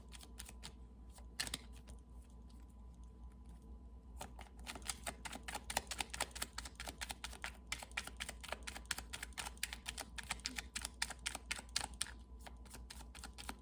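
A rapid run of light, dry clicks and taps, sparse at first and then dense from about four seconds in until near the end, over a faint steady hum.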